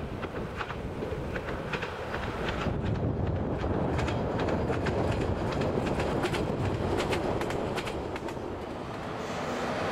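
Diesel multiple-unit train passing on unelectrified track, its wheels clacking over the rail joints in quick groups of clicks that thin out near the end.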